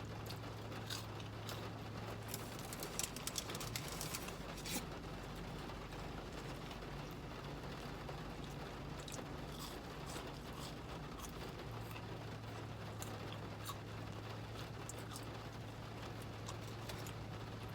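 Light rain pattering, with scattered sharp clicks and ticks that are densest in the first few seconds. A low steady hum runs underneath and drops out for several seconds partway through.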